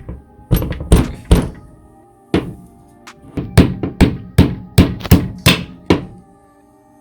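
A hammer tapping out a retaining pin in an airsoft AK-12's body, sharp metallic taps: three quick ones, a single one a second later, then a steady run of about eight, roughly three a second. Background music plays underneath.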